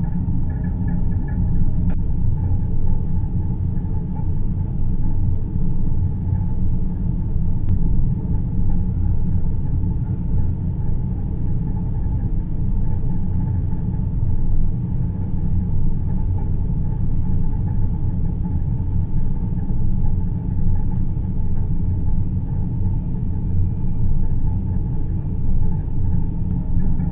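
Synthetic deep-space ambience: a steady low rumbling drone, with faint steady hum tones above it.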